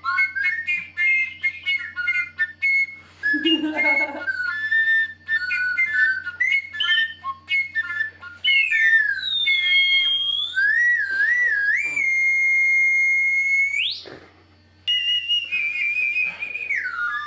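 Wooden end-blown flute played in several overdubbed layers: quick, short high whistling notes at first, then long sliding notes and a high held note, breaking off for about a second before the notes start again.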